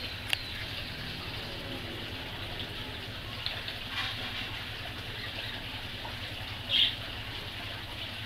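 Steady low hum and hiss with a few short, high bird chirps, one louder chirp about seven seconds in, and a sharp click near the start.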